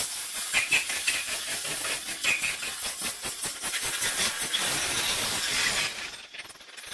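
Compressed air from a blow gun hissing as it blows dust out of a chainsaw's air filter. The hiss wavers in strength and cuts off about six seconds in.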